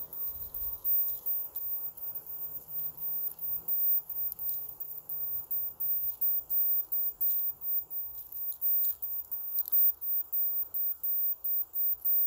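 Fingers working apart a clump of tomato seedlings in moist potting soil: irregular rustling and crackling as the soil crumbles and the roots tear free.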